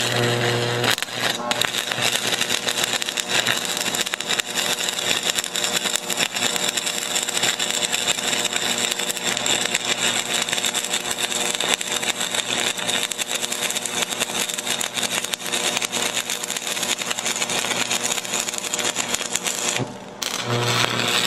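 Stick (arc) welding with a 3/32-inch 6013 electrode on DC electrode positive, on thin sheet steel: a steady, dense crackle and sizzle of the arc and spatter over a low hum. The arc breaks about 20 seconds in and is struck again a moment later.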